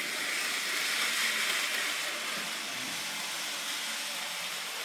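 N gauge Kato model train running along the layout's track: a steady hiss of wheels on rail and the small motor, swelling slightly about a second in.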